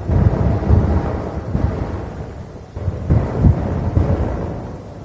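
Low rumble of military transport helicopters flying overhead in formation. It swells and eases in uneven surges, loudest around three and a half seconds in.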